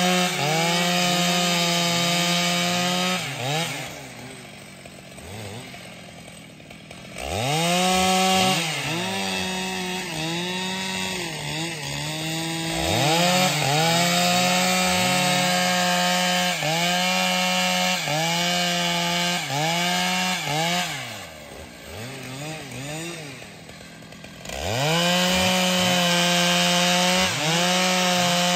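Stihl MS 881 two-stroke chainsaw cutting through a log at full throttle, its engine pitch dipping and recovering about once a second as the chain loads in the wood. Twice it drops back to idle for a few seconds, after about three seconds and again after about twenty, then revs sharply back up into the cut.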